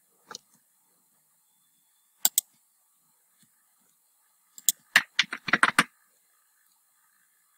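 Computer keyboard keystrokes: a single click, two quick clicks a couple of seconds in, then a rapid run of about eight keypresses around five seconds in.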